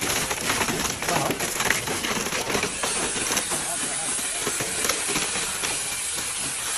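Steady hissing and crackling site noise while wet concrete spills from an overhead concrete bucket into wooden stair formwork.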